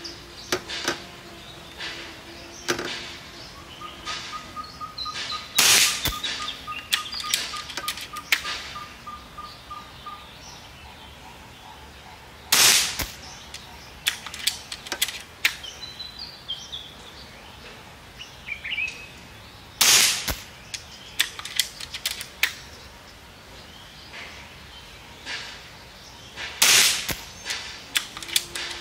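Four shots from a Seneca Sumatra 2500 .25-calibre pre-charged pneumatic air rifle, about seven seconds apart, each short and loud, with the pellets leaving at about 960 feet per second. Between the shots come small clicks of the rifle being cocked and loaded.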